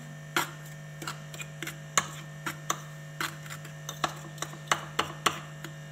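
A metal fork mixing dry milk powder with oil and egg in a bowl, tapping and scraping against the bowl in irregular clicks. A steady low electrical hum runs underneath.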